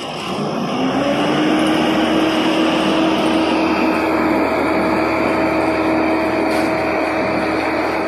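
A vehicle engine at a road-construction site revving up over the first second, then running steady and loud with a constant droning hum.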